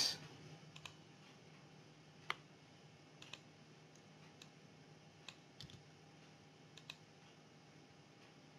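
Faint computer mouse clicks, about ten short separate clicks scattered irregularly, some in quick pairs, the sharpest a little over two seconds in, over a faint steady low hum.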